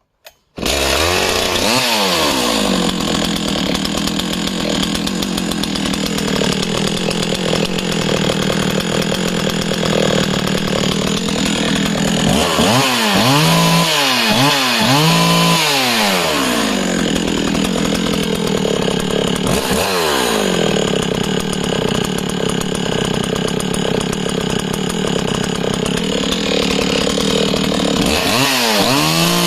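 Husqvarna 61 chainsaw's 61 cc two-stroke engine fires up about half a second in and runs with no cutting, revved up and let fall back to idle several times, in a cluster near the middle and again near the end. The owner judges the engine to have great compression and a beautiful idle.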